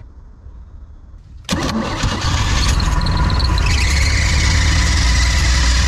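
A boat engine fitted with a Rochester carburettor catches about a second and a half in and runs loudly and steadily. The carburettor's idle jets are clogged solid and its bowl holds water, so the idle circuit is not working.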